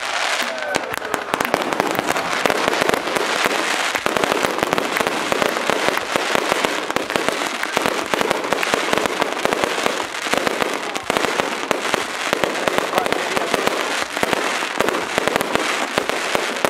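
Fireworks display: aerial shells bursting in a dense, unbroken run of bangs and crackles.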